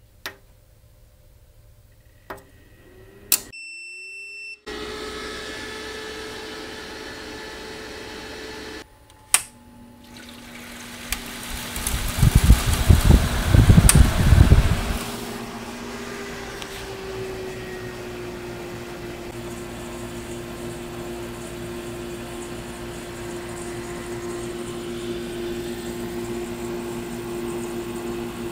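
Near the start, a few clicks and a rising electrical hum. About twelve seconds in, a GE window air conditioner is switched on at its rotary knob, with a few seconds of loud rumbling as it starts. It then settles into a steady fan rush with a steady hum.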